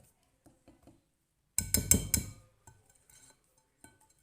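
A kitchen utensil strikes a mixing bowl about four times in quick succession, about one and a half seconds in, with a bright clinking ring. Faint small clinks and knocks of the batter being worked come before and after.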